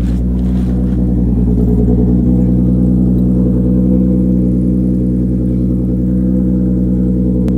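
Infiniti G35's 3.5-litre V6 idling steadily just after a cold start, running on a replacement ECU with a fresh tune.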